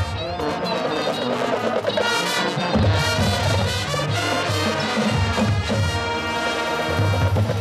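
High school marching band playing: full brass over drums, with low bass notes coming and going.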